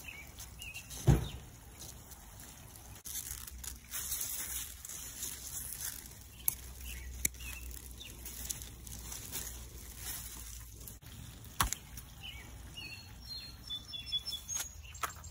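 Pea vine leaves and stems rustling close to the microphone, with a few sharp clicks or snaps and a heavy thump about a second in. Faint bird chirps come near the end.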